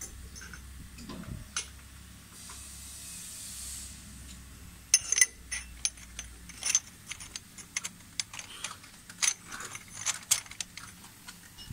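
Machined aluminum parts clinking and clattering against each other as they are handled, a run of sharp irregular clicks starting about five seconds in. A brief hiss comes a little earlier.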